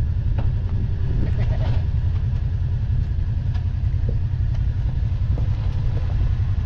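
Kawasaki side-by-side's engine running at low throttle as it crawls slowly up a rock ledge, a steady low rumble.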